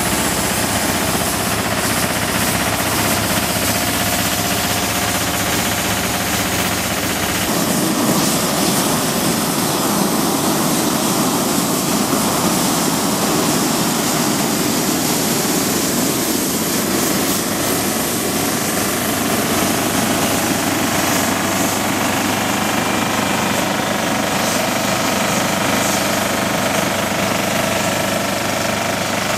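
Engine of a ride-on road-marking machine running steadily with a fast, even chatter. The sound shifts about seven and a half seconds in.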